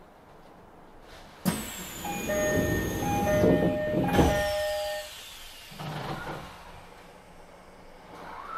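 Doors of a Tokyo Metro 16000 series train at a station stop: a sudden burst of hissing about a second and a half in, with a two-note electronic door chime repeating over it for about three seconds.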